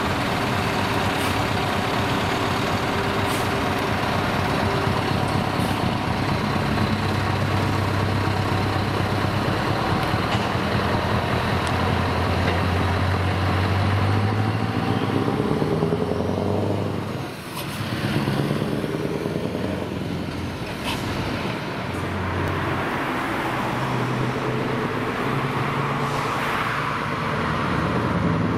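Scania V8 diesel truck engine running through open exhaust pipes, rising steadily in pitch as the tractor-trailer pulls away, then pulling along the road with its pitch changing as it shifts through gears.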